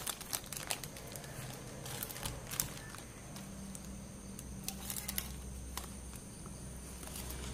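Thin clear plastic bag crinkling and rustling in short irregular crackles as it is handled and turned over, with a faint low hum coming in about two seconds in.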